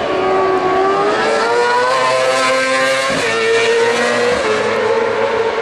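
Racing superbike engine at high revs as the bike accelerates along the track, its note climbing for about three seconds, breaking briefly, then holding a steady high pitch.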